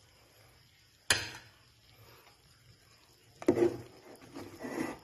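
Metal ladle working in a metal cooking pot of thick coconut-milk fish stew: a sharp clink against the pot about a second in, then a duller knock and some scraping near the end.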